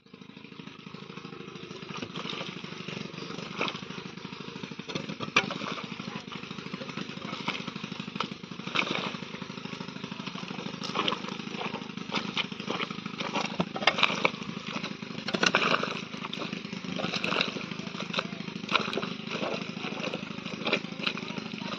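Bare feet treading and stamping a heap of wet clay mud, kneading it soft, with irregular squelches and slaps. A steady motor drone runs underneath.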